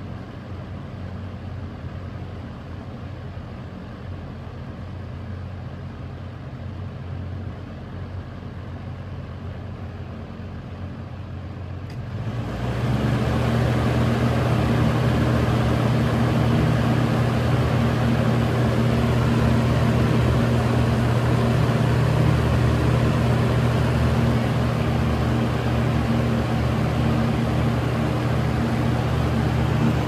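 Box fan driven by an old McMillan shaded-pole motor on a heavy, high-pitch blade set, running with a steady hum and rush of air. After a click about twelve seconds in, it jumps to a much louder, stronger rush and hum.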